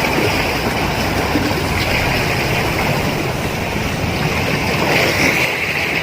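Sea waves washing and splashing against the shore in a steady rushing wash, swelling briefly about two seconds in and again near the end.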